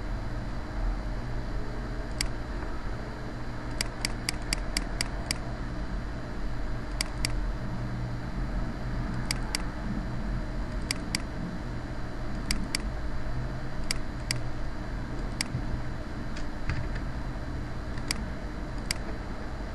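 Computer mouse clicking: a quick run of about seven clicks, then mostly double-clicks, over a steady low hum and hiss.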